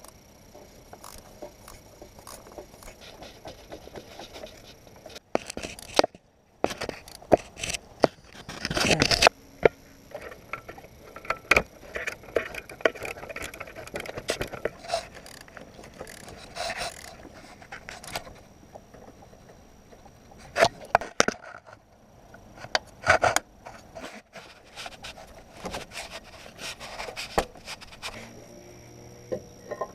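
Hand tools working on metal car parts: irregular clicks, knocks and scraping, with a few louder clanks spread through.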